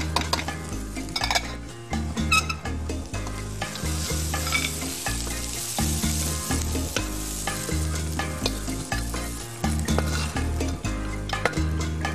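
Metal spatula stirring and scraping crisp dried fish and peanuts around a hot wok with the heat off, the food still sizzling lightly, with frequent short scrapes and clinks; later the stir-fry is scooped and pushed out of the wok onto a plate.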